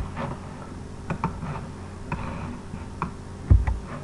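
Computer mouse clicking a few times, sharp short clicks with a dull thump about three and a half seconds in, over a low steady hum.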